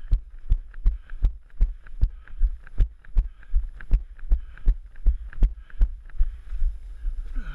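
A runner's footfalls thudding through a body-worn camera, about three steps a second, with hard breathing between them; the steps stop near the end.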